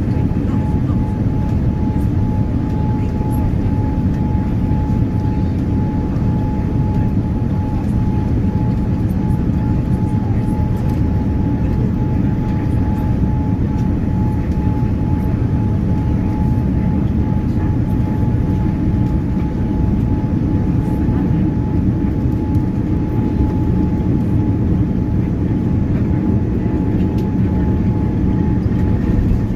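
Boeing 787-9 jet airliner landing: a steady, loud low rumble of engines and rushing air, with a thin steady whine that fades out about ten to fourteen seconds in.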